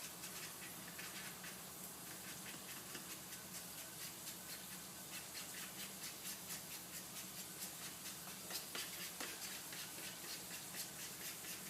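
A utensil clicking and scraping lightly against a bowl as ingredients are stirred together, a few small clicks a second, over a steady low hum.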